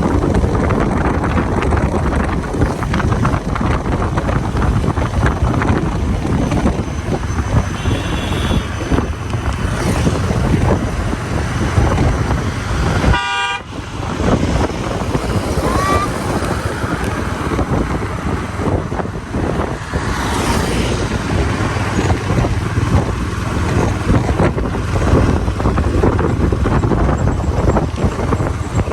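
Steady rumble and road noise of a vehicle driving, with a vehicle horn honking once briefly about thirteen seconds in.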